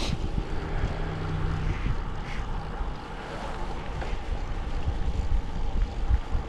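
Wind rumbling and buffeting on the microphone, with a low steady hum for about the first two seconds.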